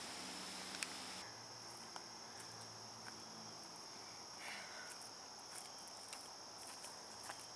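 Faint, steady, high-pitched insect drone, crickets or cicadas in the woods. Near the end come a few faint ticks and crunches of footsteps on leaf litter.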